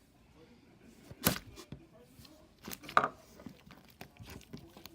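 Slime being squeezed and pulled by hand, giving sharp pops and crackles; the two loudest come about a second in and about three seconds in, with smaller clicks between.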